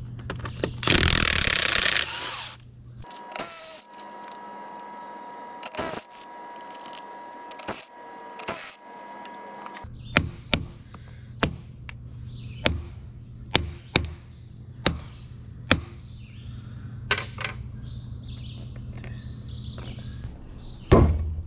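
A cordless impact wrench runs in a short burst on a rusted lug nut on a steel grader wheel. Then come about ten sharp hammer blows on the wheel, roughly one a second, knocking the rusted rim clamps loose.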